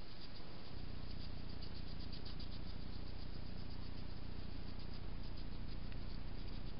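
Steady hiss of a trail camera's microphone, with an insect chirping faintly in a fast ticking trill, several ticks a second, that fades out near the end.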